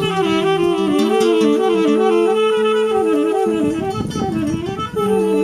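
Saxophone and guitar playing live. The saxophone runs a quick, repeating up-and-down figure over a held note, and busier guitar strumming comes in about halfway through.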